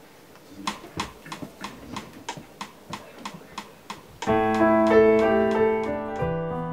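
Steady ticking at about three ticks a second, then a grand piano comes in a little over four seconds in, playing slow, sustained chords.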